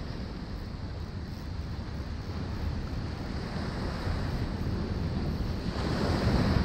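Ocean surf washing with wind buffeting the microphone, a low rumbling noise; the surf swells louder near the end.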